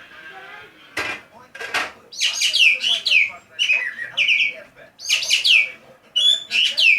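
Green magpie (ekek geling) calling: two sharp, rasping notes about a second in, then from about two seconds in a run of loud, shrill notes that each slide steeply downward, coming in bunches of three or four.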